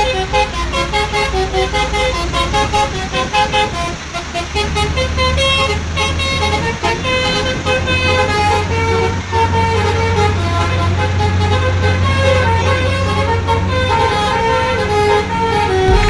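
Indonesian tour bus 'telolet' multi-tone air horn playing a tune of short tooted notes that step from pitch to pitch. A steady low rumble, typical of a bus engine running, joins about four seconds in.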